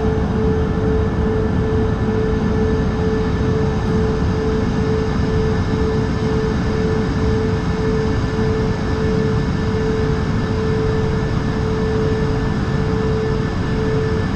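Cabin noise inside an Airbus A220 with Pratt & Whitney PW1500G geared turbofans: a steady rush of engine and airflow noise with a constant droning tone over it.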